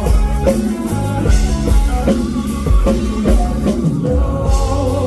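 Band music with electric guitar, bass and a drum kit playing a steady beat, in an instrumental passage between the sung lines of a Thai love song.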